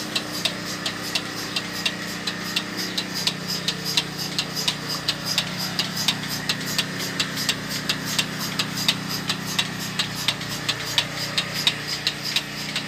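Bucket milking machine running: the pulsator on the stainless steel milk can clicks steadily, about two to three clicks a second, over the steady hum of the vacuum pump.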